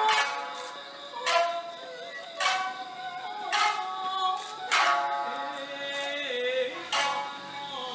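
Music with singing: a sustained melody over a regular beat struck about once a second.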